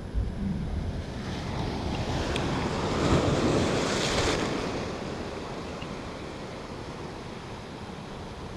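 A sea wave surges up over shoreline rocks and breaks into foaming surf. It swells to a loud wash about three to four seconds in, then drains away and fades.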